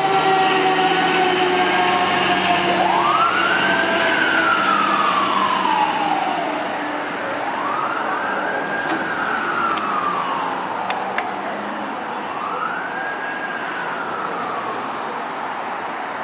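Fire engine's siren in a slow wail, rising and falling three times about five seconds apart, fading as the truck drives away. At the start a lower tone slides slowly down in pitch under the truck's engine.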